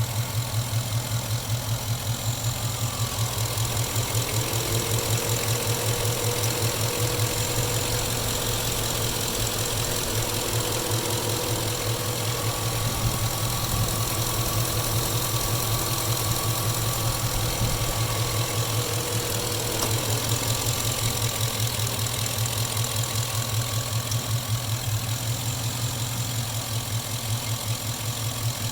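Chevy engine idling with an even, regular pulsing beat, a noise the owner suspects may be engine knock.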